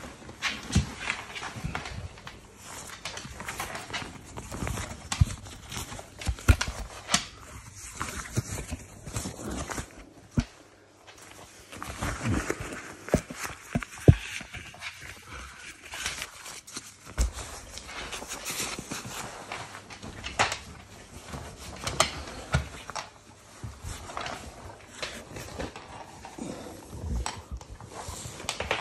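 Irregular rustling, rubbing and soft knocks as a dog coat is pulled onto a large dog by hand. The phone is pressed against fabric and fur, adding close handling noise.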